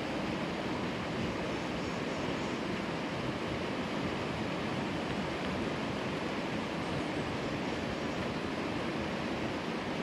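Mountain stream rushing over rocks: a steady wash of flowing water.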